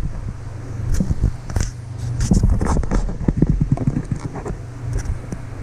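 Plastic packaging and fishing tackle being handled, with irregular crinkles, rustles and small clicks, over a steady low hum.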